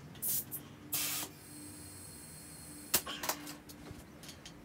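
Short hisses of air at a motorcycle's rear tyre valve stem as a pencil-type pressure gauge is pressed on and pulled off: two quick hisses in the first second or so, then a sharp click and another hiss about three seconds in. The tyre is soft, at about 26 psi against the 36 psi wanted.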